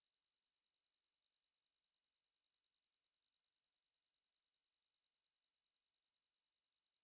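Pure 4445 Hz sine-wave test tone: one steady high-pitched whistle at constant level, without change.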